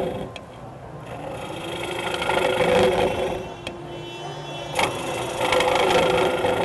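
Wood lathe running with a steady hum while a turning tool cuts the inside of a spinning birch bowl, a rough shaving and scraping noise that swells twice as the cut is pushed through, with a few sharp ticks. The tool's bevel rides on steps left in the wall to carry one continuous cut to the bottom of the bowl during rough turning.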